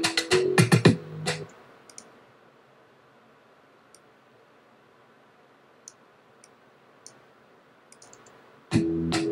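A short passage of electronic background music with a beat plays and stops about a second and a half in. A few faint, scattered clicks follow, and the same passage starts again from the top near the end, as if replayed.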